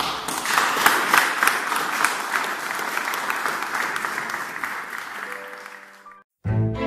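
Audience applauding, the clapping thinning out over about six seconds. The sound then cuts off briefly and music with string instruments starts near the end.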